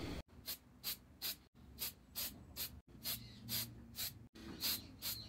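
Aerosol lacquer spray can being sprayed in short hissing bursts, about two to three a second.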